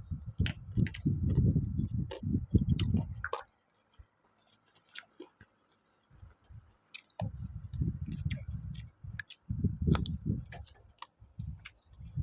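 Someone eating beef noodle soup close to the microphone: chewing with wet mouth clicks. It pauses for a few seconds in the middle, then the chewing resumes.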